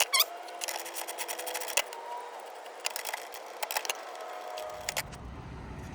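Scattered clicks and light metallic taps of a socket wrench being fitted to and working a 16 mm bolt in a car's engine bay.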